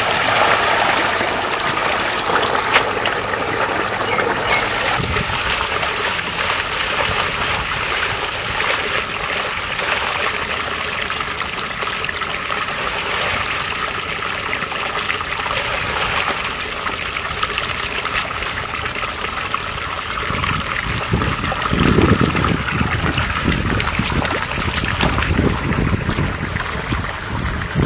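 Steady trickling and splashing of water, with a stretch of low, rough knocking and rumbling about three quarters of the way through.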